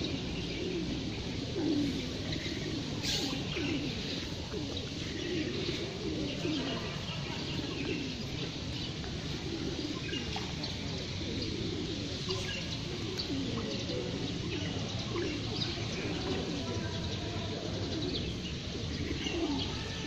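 A flock of feral pigeons cooing, their low rolling coos repeating and overlapping without a break. Small birds chirp faintly and briefly above them.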